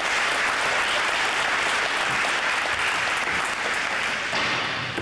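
Audience applauding, a steady dense clapping that fades away near the end.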